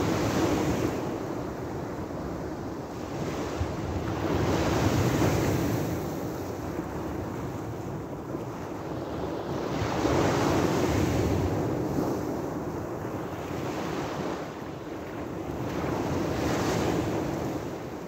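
Small sea waves breaking on a pebble beach. The surf swells and subsides about every five to six seconds.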